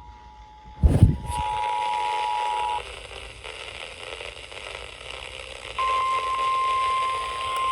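Emergency Alert System two-tone attention signal, held steady and stepping up in level after a short thump about a second in, then cutting off. A few seconds later a single steady tone starts, the NOAA Weather Radio warning alarm tone, over a hiss of radio static.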